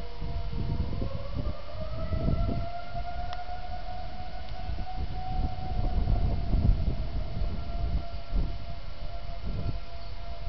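Outdoor tornado warning sirens sounding together: one holds a steady tone while a second rises in pitch for about two seconds, starting about a second in, then holds level. An uneven low rumble runs underneath.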